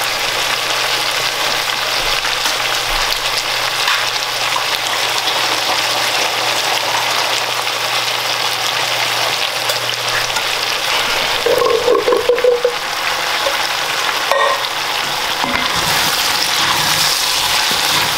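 Chickpeas and diced root vegetables sizzling steadily as they fry in coconut oil and curry in a pot, stirred now and then with a wooden spatula. There is a brief louder noise about twelve seconds in.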